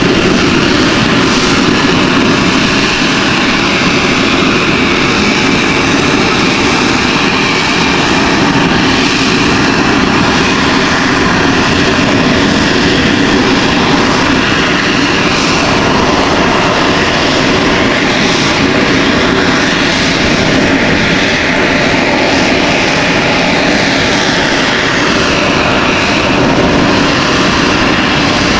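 AV-8B Harrier II's Rolls-Royce Pegasus vectored-thrust turbofan running at high power close by: a steady, intensely loud jet roar with a faint whine, holding level throughout.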